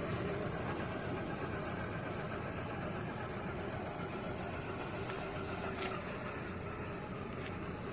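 Scale RC crawler's electric motor and gear train whining faintly and steadily as it crawls over grass, under a constant rushing noise.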